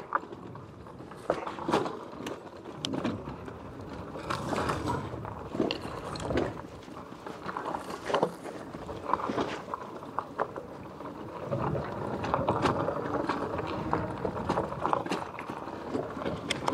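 Loaded e-bike jolting along a rough, stony dirt trail: irregular knocks and rattles from the bike and its load over a steady rumble of tyres on dirt and stones.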